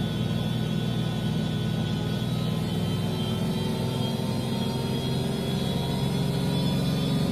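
Miele washing machine running with a steady low hum and a motor whine that rises slowly in pitch.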